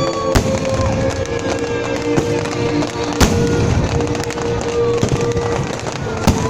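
Fireworks bursting overhead, three sharp bangs about three seconds apart, over steady music.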